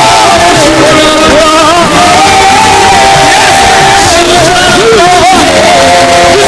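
Loud church worship music: a voice sings long, wavering held notes over accompaniment and the congregation.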